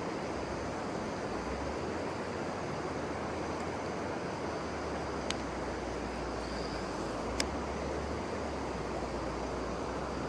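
Mountain stream rushing steadily, with two short sharp clicks a little past the middle.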